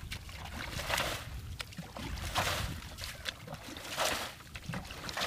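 Shallow muddy water sloshing and splashing as a person wades and works his hands through it, in several uneven bursts.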